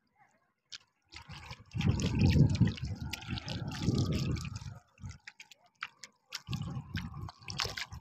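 Shallow river water splashing and dripping as a hand and a fishing net are worked through it: a busy spell of sloshing with small drips from about two seconds in, and a shorter one near the end.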